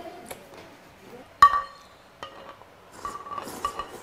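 Tableware clinking while eating: chopsticks and dishes knocking against a stainless steel bowl and plate, with one sharp ringing clink about a second and a half in and several lighter ringing clinks near the end.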